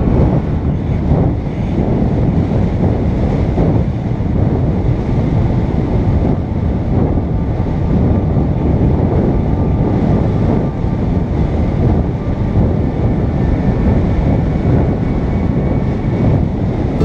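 Wind buffeting the microphone of a camera flying with a paraglider: a loud, steady, low rush of air without breaks.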